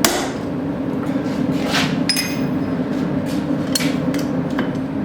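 A hammer strikes a steel maker's-mark stamp into the hot horseshoe, followed by lighter hammer taps and metal clinks, one ringing briefly about two seconds in. A steady low drone runs underneath.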